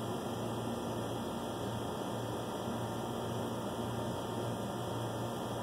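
Steady low electrical hum with a faint hiss: room tone.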